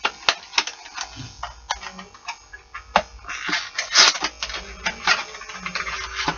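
Fishing lures and their plastic packaging handled close to the microphone as they are taken out of the box: a run of sharp clicks and taps, with a louder crinkling rustle about three to four seconds in.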